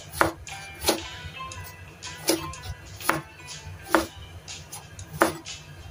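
Chef's knife roll-cutting an angled luffa into chunks on a bamboo cutting board: six sharp knocks of the blade meeting the board, spaced unevenly about a second apart, over soft background music.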